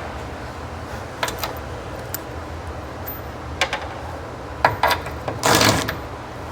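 Scattered metallic clinks and knocks of hand tools and loose parts being worked on a Humvee body, with a longer rattling scrape about five and a half seconds in, over a low steady hum.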